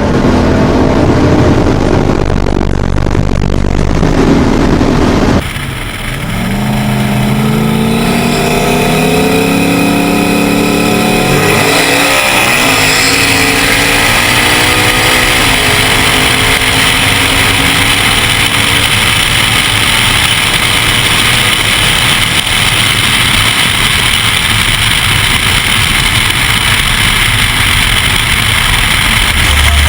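Turbocharged LS V8 race cars at full throttle. A steady engine note for the first five seconds, a brief dip, then the engine pitch climbs through the gears with shifts about eight and eleven and a half seconds in. After that comes a loud, even rush of engine and wind at speed.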